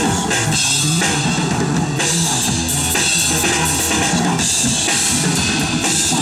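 Drum kit played live along to a pop backing track, with bass drum and cymbals over guitar and bass in an instrumental passage.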